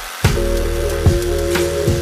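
Background music with a steady beat: held synth chords over a deep kick drum striking about twice a second, with light hi-hat ticks.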